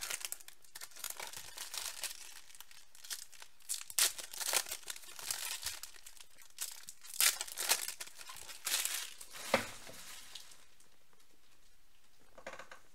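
Foil wrappers of trading card packs crinkling and tearing as the packs are opened by hand, in irregular rustles and crackles that stop about ten seconds in.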